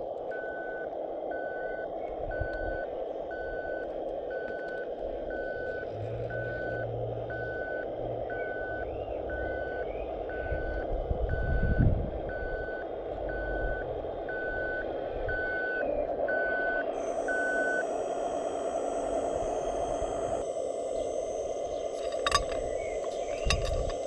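Scale RC Scania tipper truck reversing: its reversing beeper sounds steadily, about one beep every three-quarters of a second, over the whine of its electric drive. Near the end the beeping stops, a higher whine comes in, and a few sharp clicks come as gravel begins to slide from the tipped bed.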